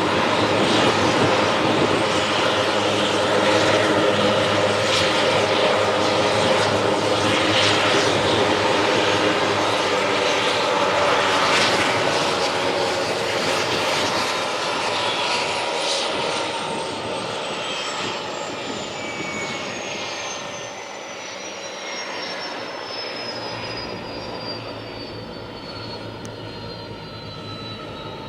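Eurocopter AS332L1 Super Puma helicopter running loud, its turbine engines and rotor, then fading through the second half while a high turbine whine falls steadily in pitch.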